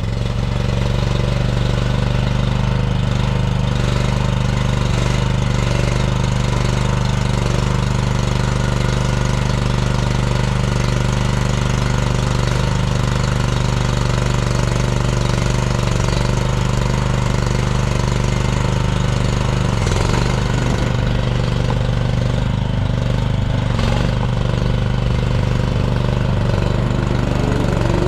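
Engine of an AGT MX0MRT14 tracked stand-on mini skid steer running steadily at a constant speed.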